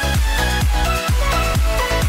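Background electronic dance music with a heavy kick drum about twice a second, deep bass and held synth notes.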